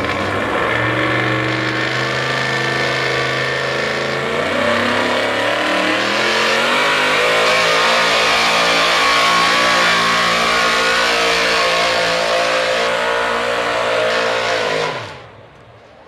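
A 4x4 pickup truck's engine at full throttle dragging a pulling sled: the revs climb over the first several seconds, hold high and steady, then drop away suddenly near the end as the pull stops.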